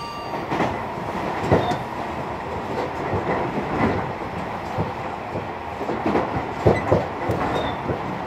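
Tobu Railway electric train running at speed, heard from inside the car: a steady running rumble with the wheels knocking now and then over rail joints.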